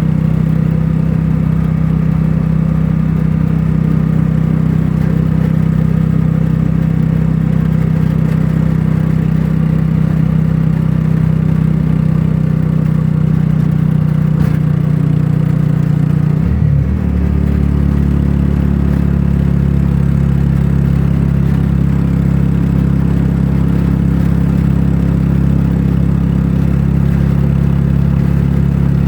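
A vehicle engine running steadily, heard while travelling, with a low hum and rumble. About sixteen seconds in, its pitch shifts briefly and settles into a slightly different steady hum, like a change in engine speed.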